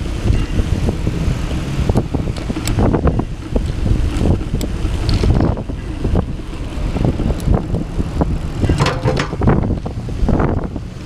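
Wind buffeting the microphone of a camera riding along on a moving bicycle, with a steady low rumble and many small knocks and rattles as it rolls over the concrete path.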